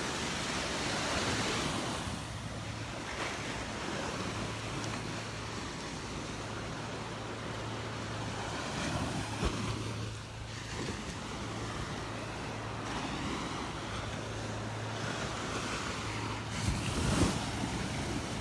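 Gulf of Mexico surf washing onto the beach, swelling and ebbing every few seconds, with wind buffeting the microphone. A faint steady low hum runs underneath, and a couple of brief knocks stand out, the louder one near the end.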